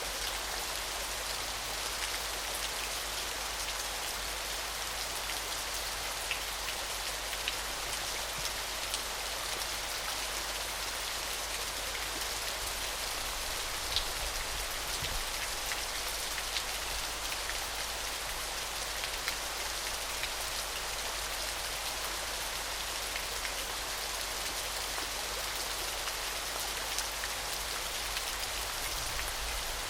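Small, gentle waterfall: a steady wash of falling, splashing water, mostly in the higher range, with scattered single drip-like ticks.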